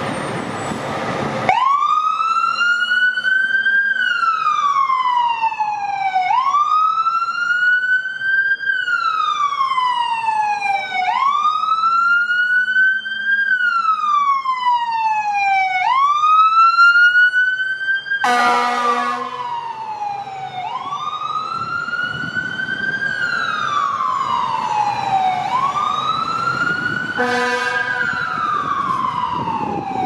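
Fire rescue truck's wail siren sounding, its pitch rising and falling about every four to five seconds. Two air horn blasts cut in: one of about a second and a half about two-thirds of the way through, and a shorter one near the end.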